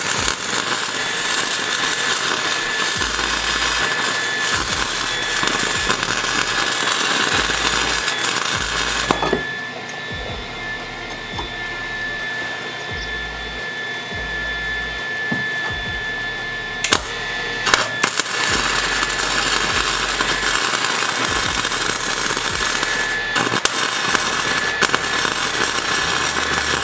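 Power tool working the van's steel: a steady high whine over a harsh hiss. It drops in level for several seconds about nine seconds in, then comes back up.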